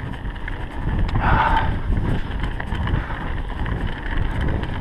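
Mountain bike riding downhill on a dirt trail: wind buffeting the GoPro's microphone over the rumble and rattle of the tyres and bike, with scattered clicks and a brief higher-pitched noise about a second in.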